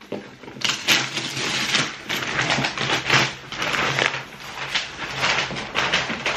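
Cardboard parcel being unpacked: the box flaps and packing rustle, crinkle and scrape in an irregular run of crackles.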